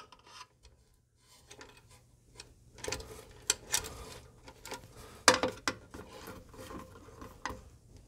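Small handling noises of wires being fitted and screwed into terminals: scattered light clicks and rubbing, starting about a second and a half in.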